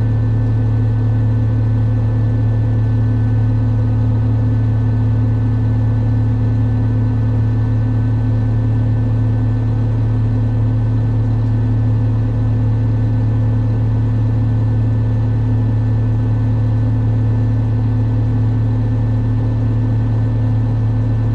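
Tractor engine running at a steady, constant speed: an even low drone with a few fixed higher tones above it, unchanging throughout.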